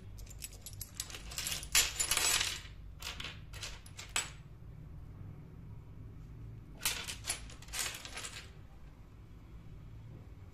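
Tiny ceramic dishes clinking and rattling against each other as pieces are handled from a pile: a run of light, sharp clicks over the first four seconds, then another brief cluster about seven to eight seconds in.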